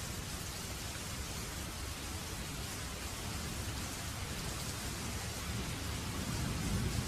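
Steady rain falling, an even hiss of drops. A low rumble of thunder swells near the end.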